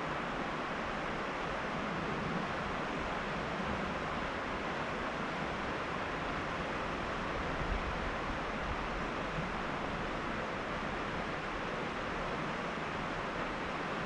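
Steady, even rushing of river water.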